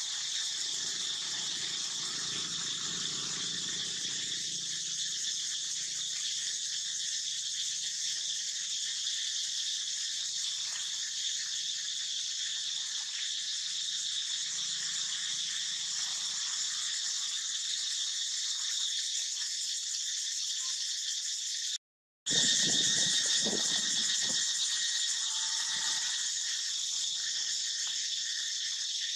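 Steady, high-pitched insect chorus droning without letting up. It breaks off for an instant about three quarters of the way through, followed by a few low rustles.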